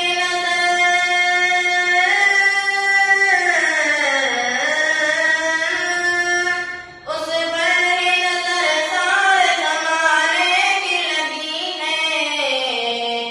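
A boy's voice singing an Urdu naat solo, with no instruments, in long held, ornamented phrases; a short breath gap comes about seven seconds in.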